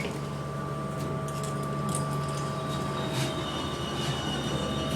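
Dover elevator car travelling upward: a steady hum of the ride with a couple of faint held tones, and a higher whine joining about three and a half seconds in.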